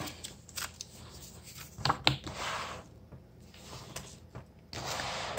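Books being handled on a table: covers, pages and a plastic sleeve rustling and rubbing, with a couple of light knocks about two seconds in.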